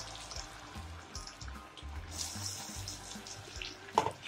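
Boiled potato cubes frying in hot oil in a kadhai, a faint sizzle, over soft background music; a single sharp click about four seconds in.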